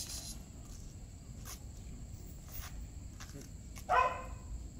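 A Belgian Malinois gives one short, loud bark near the end.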